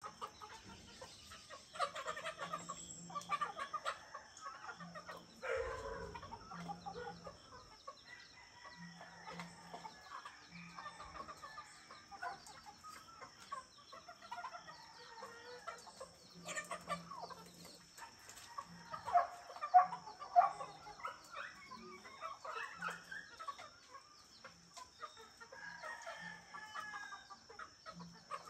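Chickens clucking and roosters crowing, with scattered bird calls, over a steady high-pitched hiss.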